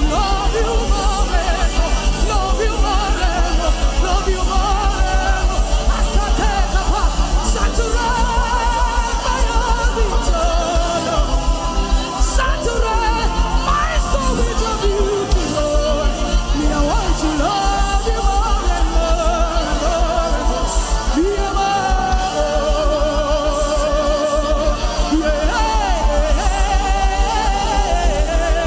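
Christian worship music with a steady, fast beat and wavering, held singing over it, with no clear words.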